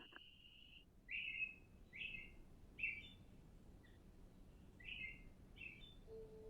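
Small bird chirping: about six short, slightly falling notes roughly a second apart. A steady high tone fades out in the first second, and a low hoot begins just before the end.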